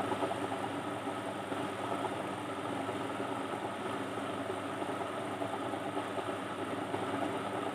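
A steady mechanical hum with no rhythm or change.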